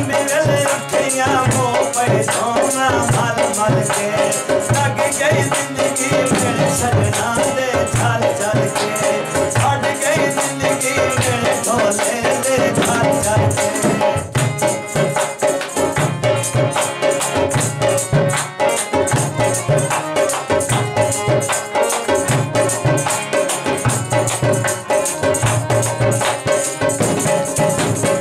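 Punjabi folk music: a regular drum beat with a constant fast shaker rattle over a wavering melodic line.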